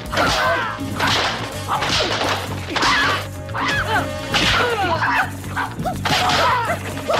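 Martial-arts film fight sound effects: whip-like swishes and snaps of punches and kicks, about one a second, mixed with high, bending yelping battle cries.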